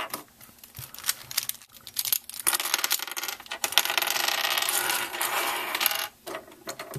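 Small hard plastic twisty-puzzle pieces clicking and clattering against each other and the tabletop as they are handled, with a dense run of rattling from about two and a half seconds in until about six seconds.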